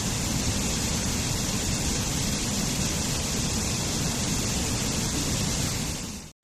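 Waterfall rushing steadily, then fading quickly to silence near the end at an edit point.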